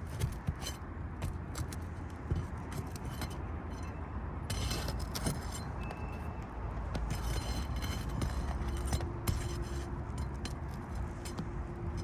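A steel flat bar prying and scraping under asphalt shingles to break the seal strips and work the nails loose, heard as intermittent scraping bursts with a metallic jangle.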